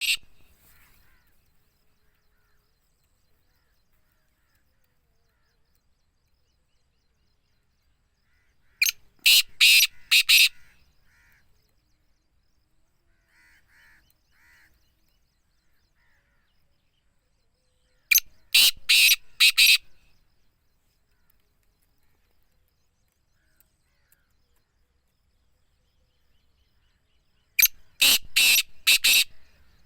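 Black francolin calling: three loud, harsh calls about nine seconds apart, each a rapid run of five or six clipped notes lasting under two seconds, with a few faint softer notes between the first two.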